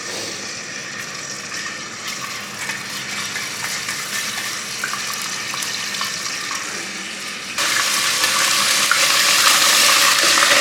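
Ginger and garlic paste sizzling steadily in a pan of hot oil, growing louder and jumping to a louder sizzle about three-quarters of the way through.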